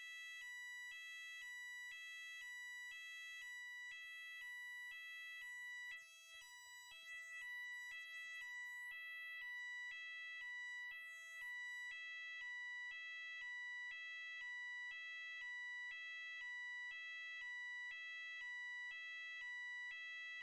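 Electronic fire alarm sounding: a steady piercing high tone under a second tone that switches between two pitches about once a second. It wavers briefly about six seconds in and stops abruptly at the end.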